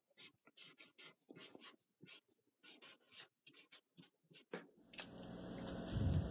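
Marker pen writing on cardboard in short, separate scratchy strokes. About five seconds in, the strokes give way to a steady background hiss, with a low thump near the end that is the loudest sound.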